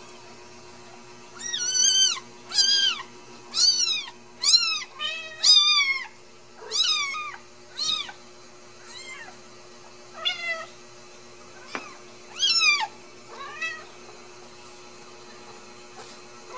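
Newborn Ragdoll kittens mewing: about a dozen high, thin cries, each rising and then falling in pitch, loudest over the first few seconds and growing fainter and more spaced out after that.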